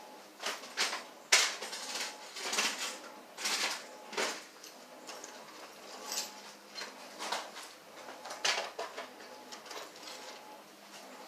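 Irregular clicks, clinks and short scrapes of a screwdriver and small metal parts being handled.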